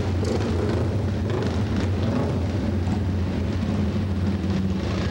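Flat-track racing motorcycle engines running in a large indoor arena: a steady low rumble with a constant hum under it.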